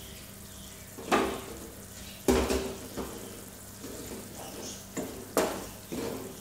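Onion and ginger-garlic masala sizzling steadily in oil in a non-stick kadai over a low flame, with a wooden spatula stirring and scraping it in about six short strokes.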